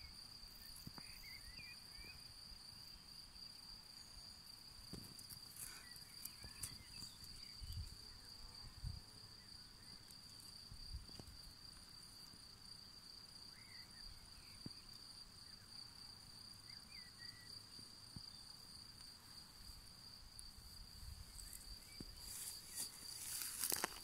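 An insect trilling steadily in one high unbroken tone, faint, with a few brief bird chirps and some rustling near the end.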